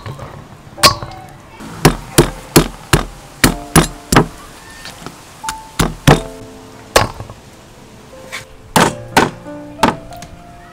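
Meat cleaver chopping a raw duck on a thick wooden chopping block: about fifteen hard chops in irregular runs, some three a second. Background music plays underneath.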